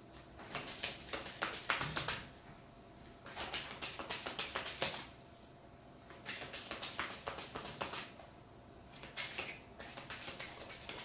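A deck of Rider–Waite tarot cards being shuffled by hand, the cards clicking against each other in four bouts of rapid clicks with short pauses between.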